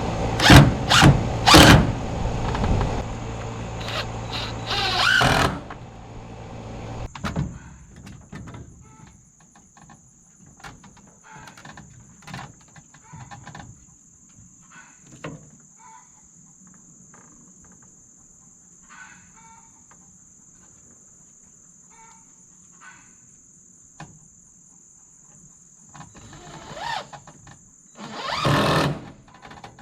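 A motor running with a few sharp clicks, cut off about seven seconds in. After that, a faint steady high insect buzz with scattered short chirps, and two louder noises near the end.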